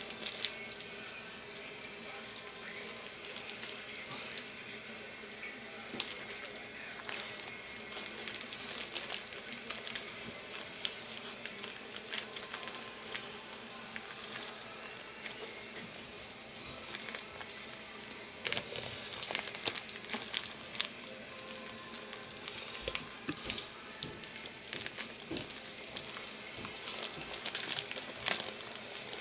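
Bacon frying in a pan: a steady sizzle with scattered pops and crackles throughout.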